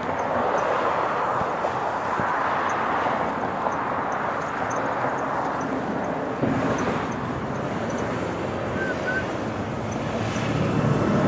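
Road traffic: the steady hiss and rumble of passing vehicles, swelling and fading as they go by, with a deeper engine sound joining in about halfway through.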